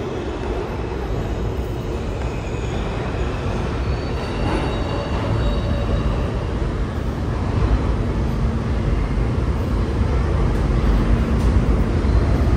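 Subway train running, heard from inside the car: a steady rumble of wheels on rails that grows somewhat louder past the middle, with faint high squealing tones.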